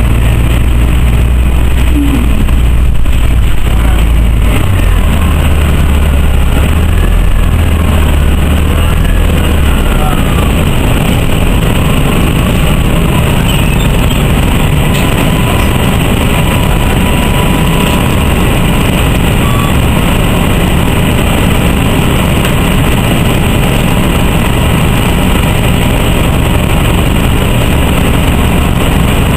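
Cabin noise inside an Orion V CNG transit bus, with its Detroit Diesel Series 50G natural-gas engine running. A heavy low rumble as the bus slows thins out about ten seconds in, and the engine then idles steadily with the bus at a standstill.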